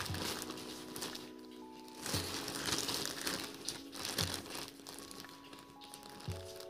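Plastic courier mailer bag crinkling as hands handle it and pick at its sealed flap, loudest about two to three seconds in. Background music with sustained notes and a soft beat about every two seconds plays underneath.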